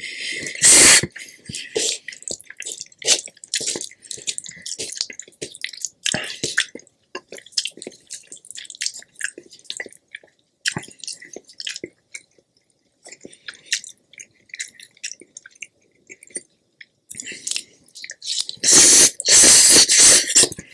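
Close-miked eating: wet chewing, smacking and mouth clicks, with loud crackly bursts about a second in and again near the end.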